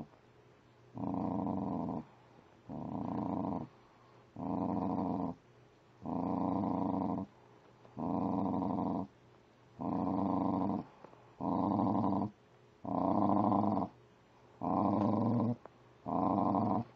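American Eskimo dog growling low in a steady rhythm, one rumbling growl of about a second with each breath, about ten in a row with short pauses between.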